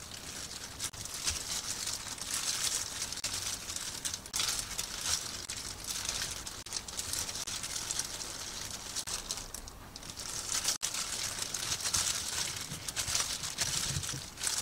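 Thin disposable plastic gloves crinkling and rustling as hands lay perilla leaves and fillings on rice and seaweed and roll the gimbap.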